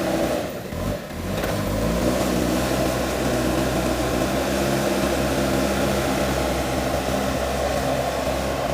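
JCB backhoe loader's diesel engine running. The sound dips briefly about half a second in, then the engine rises in pitch and runs steadily.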